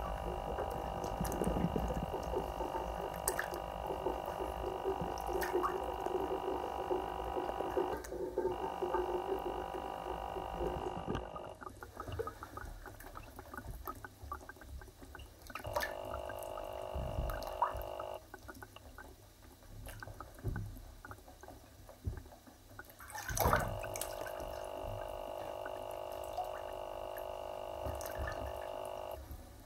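Bath tap running into the tub with a steady pitched rush; it stops about a third of the way in, runs again briefly, and comes back on for the last few seconds. In between, water sloshes and splashes as shoed feet step in the shallow bathwater.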